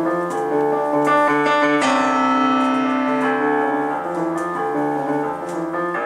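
Instrumental piano music. A fuller chord is struck about two seconds in and held.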